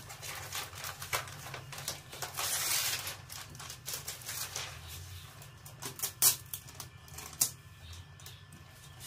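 Cloth rubbing and pressing a self-adhesive PVC marble sheet flat, smoothing out creases, with crackling and crinkling of the plastic sheet and a longer swishing rub about two seconds in. Two sharp, louder crackles come a little past the middle.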